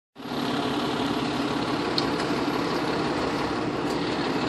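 FDNY fire engine's diesel engine idling with a steady low drone, with a couple of faint clicks partway through.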